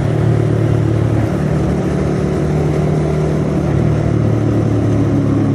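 Suzuki Satria F150 carburettor motorcycle's single-cylinder engine running steadily while being ridden, its pitch shifting slightly about a second in and again near the end.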